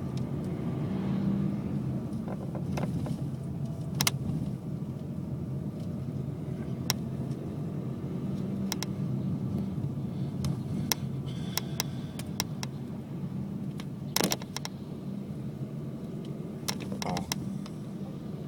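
Car running with a steady low rumble, with scattered sharp knocks and clicks; the loudest come about four seconds in and about fourteen seconds in.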